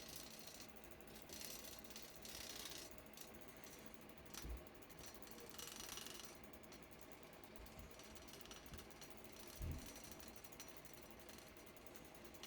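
Motorized bicycle's rear wheel spun by hand, the wheel, sprocket and chain turning with faint, rapid mechanical clicking and a couple of soft knocks. The wheel is being turned to check the rear sprocket for wobble.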